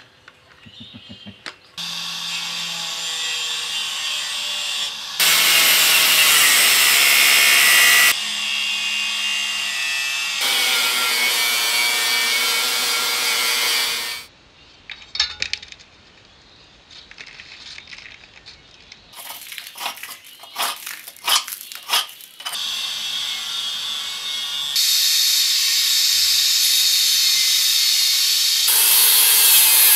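Angle grinder with a cutting disc cutting through steel welds on a Land Rover Series 1 rear axle housing. It runs in several stretches of a few seconds each. Midway there is a pause with a row of sharp knocks.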